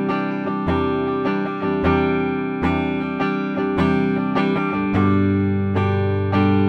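Gibson SG Standard electric guitar with a clean amp tone on the neck pickup, playing picked chords and arpeggiated notes that ring into one another, with a new chord about every second.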